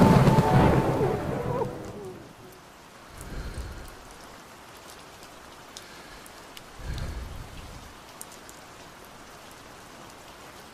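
Steady rain falling with thunder. A loud crash dies away over the first two seconds, then two low rumbles come about three and a half and seven seconds in.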